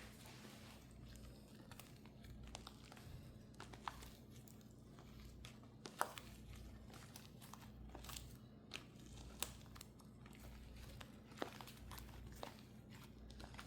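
Homemade slime being squeezed and worked by hand: faint, irregular small clicks, pops and crackles, with one sharper pop about six seconds in.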